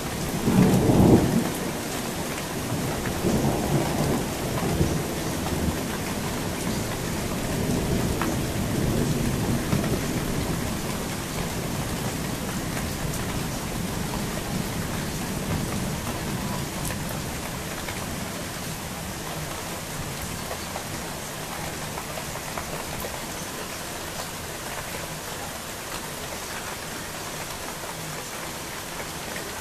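Thunder rumbling over steady rain: a loud peak about a second in, then rolling rumbles that die away after about ten seconds, leaving the even hiss of the rain.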